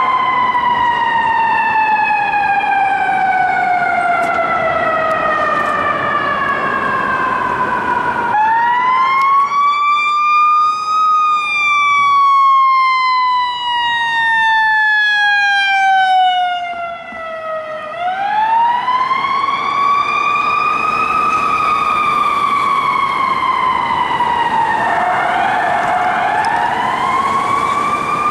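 Fire engine's siren in long wails: a falling tone at first, then three wind-ups, each rising over two or three seconds and sliding slowly back down, the slow rise and long coast-down typical of a mechanical siren.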